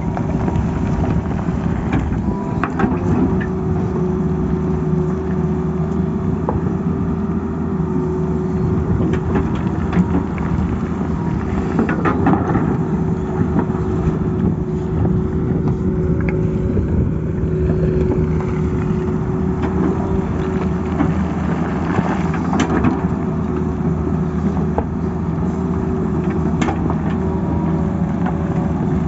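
Tata Hitachi tracked excavator working: its diesel engine runs steadily with a constant whining tone, while the bucket scrapes and knocks against rock and soil, with a few sharp knocks scattered through.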